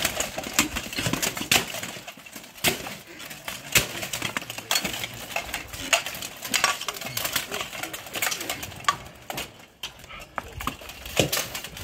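Steel plate armour and weapons clanking and clashing as armoured fighters grapple and trade blows: irregular sharp metallic hits and rattles.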